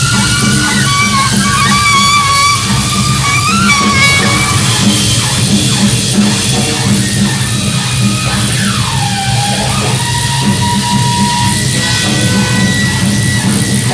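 Loud live noise music: a drum kit pounding under a dense wall of electronic noise, with wavering high-pitched tones and one tone gliding down about nine seconds in.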